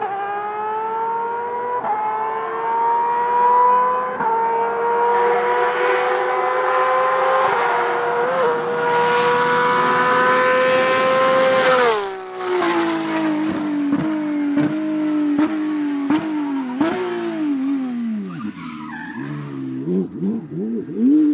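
Rally car engine at full throttle, climbing in pitch with quick gear changes about two and four seconds in, then lifting off sharply about halfway through. It carries on with a string of sharp pops and bangs and uneven throttle blips as the car brakes and downshifts.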